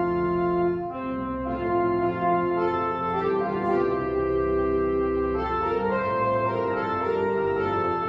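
Organ playing a hymn tune in slow held chords that change every second or so, with no voices singing along.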